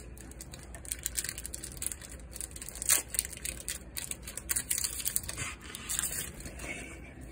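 Foil wrapper of a Pokémon card booster pack crinkling and tearing as it is pulled open by hand, in a run of short crackles, loudest about three seconds in.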